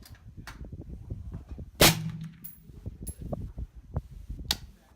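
Sig MCX 5.56 rifle firing: one loud shot about two seconds in and a second, weaker report near the end, over a low steady wind rumble on the microphone.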